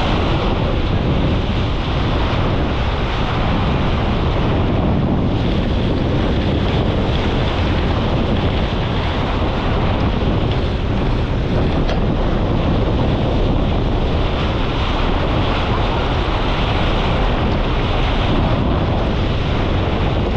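Strong wind steadily buffeting an action camera's microphone, mixed with rushing water from a J/99 sailboat running fast downwind through rough seas.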